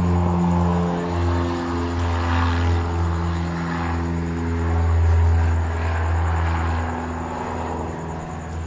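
Small portable generator's engine running steadily on HHO gas from an electrolyzer, its throttle partly closed, with the engine note wavering slightly.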